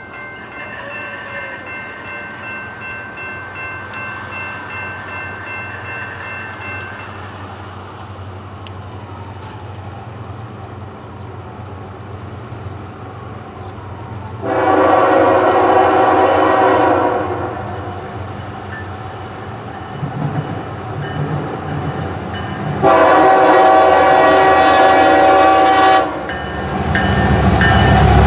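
Norfolk Southern EMD SD70ACE diesel locomotive approaching, sounding its air horn in two long blasts about fifteen and twenty-three seconds in. Fainter steady horn-like tones sound in the first few seconds, and the engine and wheel rumble grow louder near the end as the locomotive arrives.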